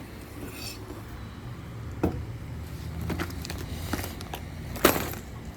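A few light knocks and rustles of a cloth bag and a cup being handled, the loudest knock near the end, over a steady low hum.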